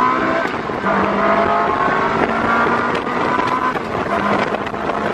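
Ferrari sports car engine running steadily under way, heard from inside the open-top cabin with wind noise. The engine note breaks briefly about a second in and again about three seconds in, each time coming back slightly lower.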